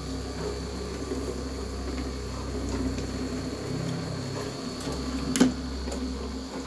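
Small electric motor of a toroidal transformer winding machine running with a steady hum, its roller turning the copper-wound toroid core. A sharp click comes about five seconds in.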